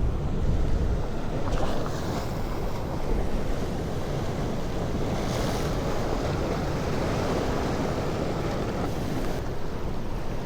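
Wind buffeting the microphone over the steady wash of sea waves, with a brief louder hiss of water or gust about five seconds in.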